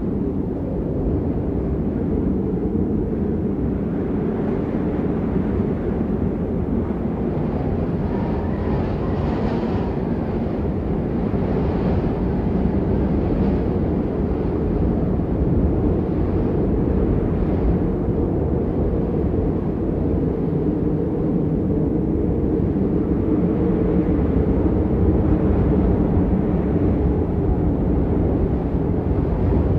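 A steady, loud low rumble with faint steady hum tones in it, unbroken throughout, of the kind made by an engine or a moving vehicle.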